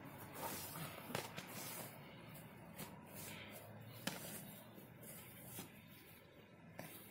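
Faint boxing sparring: a few sharp slaps of boxing gloves landing on a guard, one of them from a long jab, over the shuffle of feet on grass.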